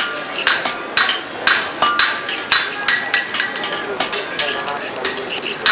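Blacksmiths' hand hammers striking hot iron on anvils, about two blows a second in an uneven rhythm, each blow with a bright metallic ring.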